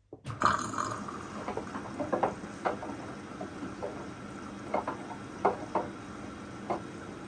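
Hoover DXOA610AHFN-80 front-loading washing machine running a wash: water sloshing in the turning drum, with irregular splashes and soft knocks over a steady background of running water.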